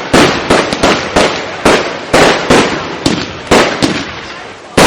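Aerial firework shells bursting in quick succession: about a dozen sharp bangs, two to three a second, each trailing off in a fading rumble.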